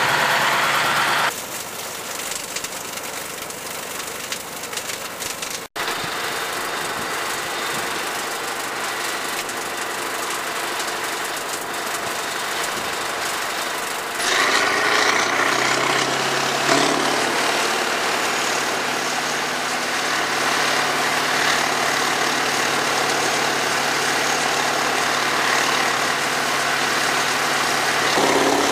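Heavy diesel engine of a truck-mounted tub hay grinder running steadily as it grinds round bales. It grows louder about halfway through.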